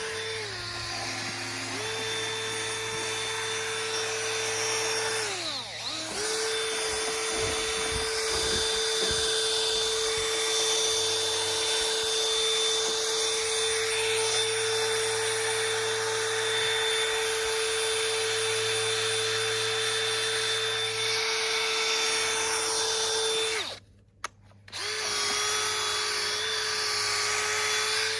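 Electric drill spinning a foam polishing pad at low speed, buffing rubbing compound into a boat hull's faded paint. It runs with a steady whine, slows and picks up again about six seconds in, and stops for about a second near the end before starting again.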